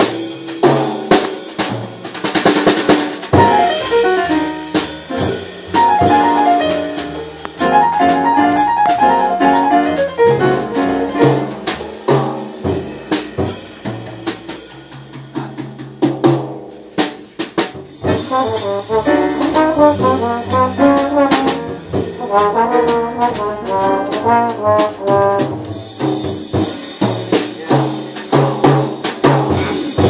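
Small jazz band playing live: saxophone and trombone over piano, upright bass and drum kit. The horns thin out for a quieter stretch midway, then come back in full.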